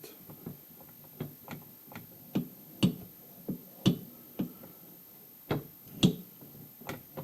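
Loose plastic center console knocking and clicking as it is moved by hand over the gear shifter: a dozen or so irregular light knocks, a few louder ones among them. The console is not yet bracketed down.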